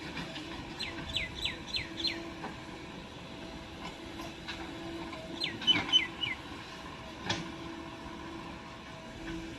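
Diesel engine of the earth-moving machinery running steadily. Over it, a bird calls in two quick series of short falling chirps, and there is a single sharp knock about seven seconds in.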